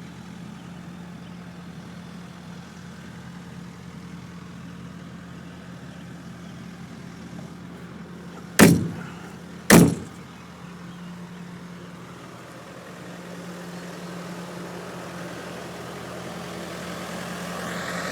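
Nissan six-cylinder diesel engine of a Takeuchi TB68 compact excavator idling steadily. Two sharp, loud knocks come a little over a second apart, about halfway through.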